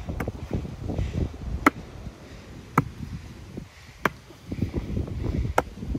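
Sledgehammer striking the top of a wooden stake, driving it into the ground: four sharp knocks, each a second or so apart.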